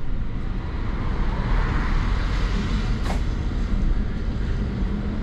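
London double-decker bus on the move, heard from inside: a steady low rumble of engine and road, with a hiss of tyres on the wet road swelling in the middle. A single sharp click about three seconds in.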